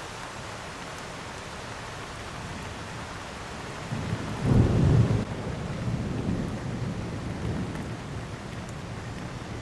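Heavy rain falling steadily, with a thunderclap about four seconds in that rumbles on for a few seconds before fading.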